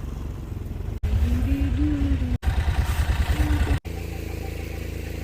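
A vehicle engine running steadily. It gets louder for a few seconds in the middle, with a pitch that rises and falls as if under throttle, and the sound cuts out briefly three times.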